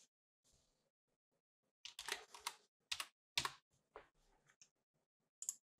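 Faint computer keyboard typing: a few short runs of keystrokes as a short word is typed, then one more click near the end.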